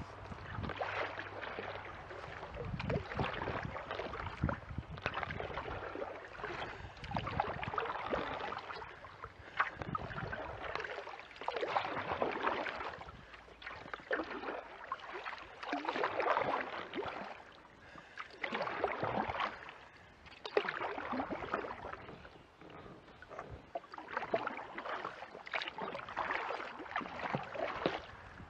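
Kayak paddle strokes in creek water, a swish and splash of water that swells and fades about every two seconds in a steady rhythm.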